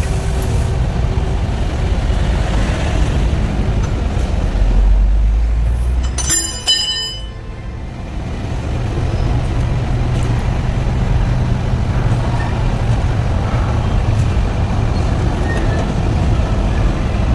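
Truck engine running with a steady low rumble, and a brief high-pitched squeal about six seconds in.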